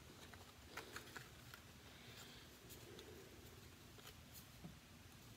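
Near silence, with faint rustling and a few small clicks of baseball cards being handled and sorted.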